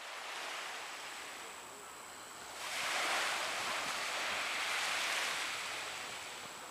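Sea water washing and lapping, with wind on the microphone. It gets louder about two and a half seconds in and eases off near the end.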